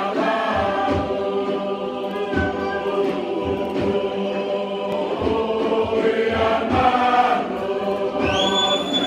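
A large mixed group singing a Tokelauan song together in many voices, with low thuds keeping a steady beat. A high, held whistle rises in near the end.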